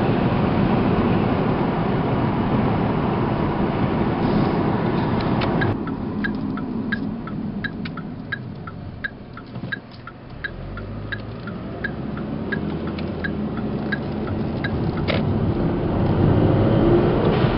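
The 2011 Kia Optima SX's turbocharged 2.0-litre four-cylinder pulls under power, heard from inside the cabin, and the throttle lifts about six seconds in. While the car coasts, the turn-signal relay ticks rapidly and evenly for about nine seconds. Then the engine pulls again and the noise builds near the end.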